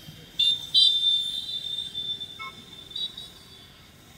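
Vehicle horns honking in street traffic: a short high-pitched toot, then a longer honk held for about two seconds and fading, and another brief toot about three seconds in.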